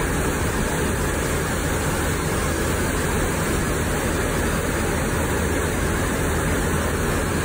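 Steady rush of water pumped up the slope of a standing-wave surf simulator, a dense hiss with no breaks.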